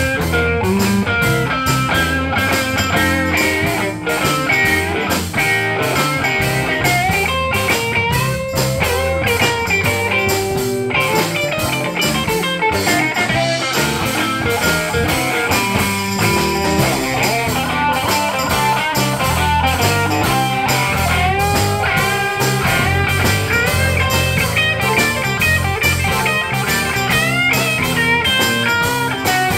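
A live electric blues band playing a shuffle: electric guitars, bass and drums keep a steady groove, with a bending lead line on top.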